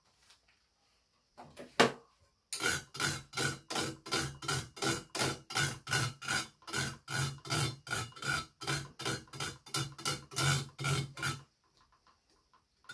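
Rapid, even series of taps on a freshly strung badminton racket's string bed, about four a second, each ringing at the same pitch. The taps stop near the end.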